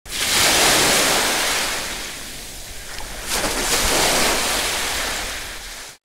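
Surf washing in twice, each wave a rush that swells and dies back, cut off suddenly at the end.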